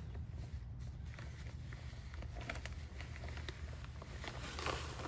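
Plastic bag of soil being handled and shifted, rustling and crinkling with scattered small ticks and a denser rustle near the end, over a steady low rumble.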